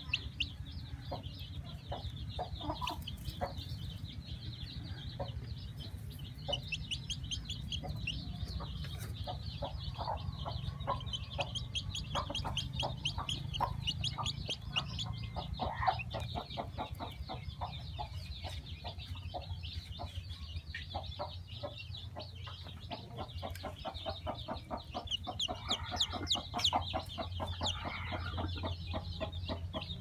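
Chickens clucking on and off, over a constant high, rapid chirping.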